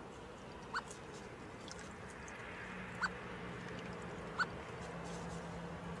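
Water trickling steadily from a stone bird bath's spout into the basin, with three short, sharp high notes: about a second in, at three seconds, and at about four and a half seconds.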